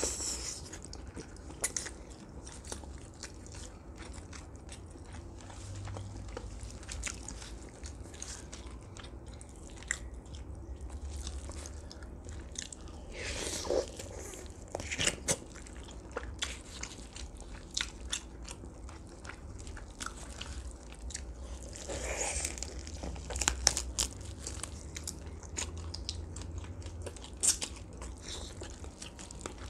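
Close-miked eating of roasted duck: biting, crunching through the crisp skin and chewing, with many small clicks and smacks throughout. The eating gets louder and busier about halfway through and again about three-quarters of the way through.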